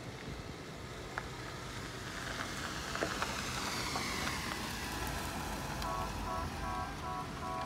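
Steady outdoor noise, with a hiss that swells and fades in the middle. Near the end a quick run of short, pitched tones starts, pulsing about three times a second.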